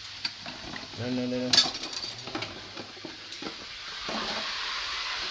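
Metal kitchen utensils clinking and clattering as someone rummages through them, a handful of separate sharp clinks. About four seconds in, the sizzle of fish frying in oil in a pan gets louder and runs on steadily.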